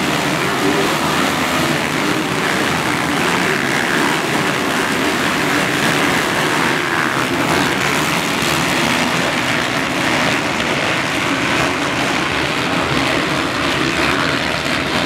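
A pack of motocross dirt bikes racing on the track, many engines revving at once and blending into one dense, steady noise.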